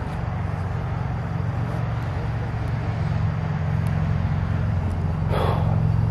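Car engine running with a steady low hum. A brief rustle comes about five seconds in.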